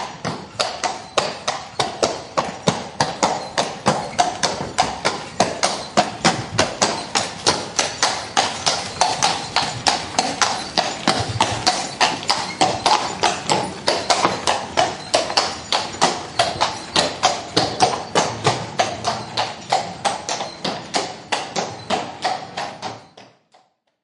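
Horse's hooves clattering on a hard surface in a steady clip-clop, about three to four strikes a second, fading out quickly near the end.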